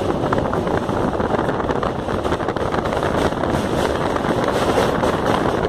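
A train running over a steel truss bridge, heard from on board: a steady rumble of wheels on the track, with wind buffeting the microphone.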